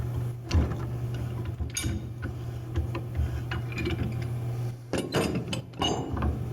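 Pipe wrench working on the steel back shell of a cone penetrometer's SMR module held in a vise: scattered metal clicks and knocks as the wrench is set and turned, heaviest about half a second in, near two seconds and again around five to six seconds, over a steady low hum.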